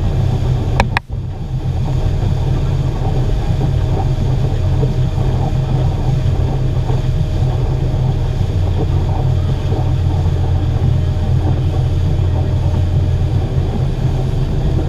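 250 hp outboard motor running steadily at speed, pulling a boat along with the rush of wake water behind it. A sharp click and a brief dropout about a second in.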